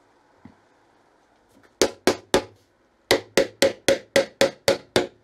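A mallet strikes a dovetailed wooden box, knocking its joints home: three blows, a short pause, then a quick even run of about eight more at roughly four a second.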